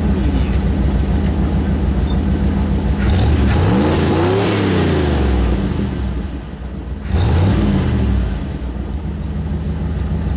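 1967 Ford F-100's 352 cubic-inch V8 idling through an exhaust the owner calls shitty, revved twice: a longer rise and fall in revs about three seconds in and a shorter one about seven seconds in.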